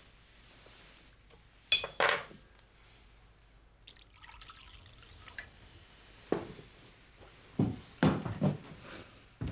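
Liquid poured from a glass jug into a bowl, with crockery and glass clinking and knocking on a table; the loudest clinks come about two seconds in, and several more knocks follow in the last few seconds.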